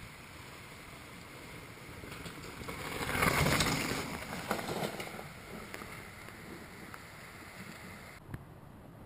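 Rushing wind on the microphone and riding noise from a camera carried on a fat bike, with a swell about three to four seconds in.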